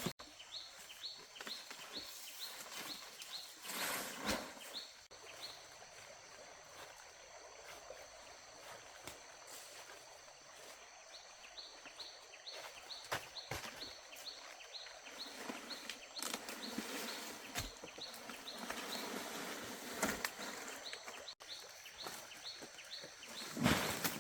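Outdoor rural ambience: a short high chirp repeating about two or three times a second, over faint steady high-pitched insect tones, with a few scattered knocks, the loudest near the end.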